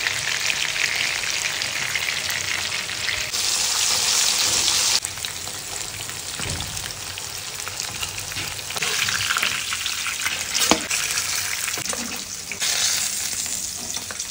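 Steaks of catla fish frying in hot oil in a pan: a steady, crackling sizzle whose loudness jumps up and down several times. One sharp tap about ten and a half seconds in.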